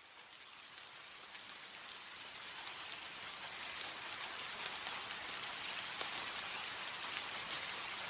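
Rain falling: a steady hiss of many small drops pattering on surfaces, growing louder through the first few seconds.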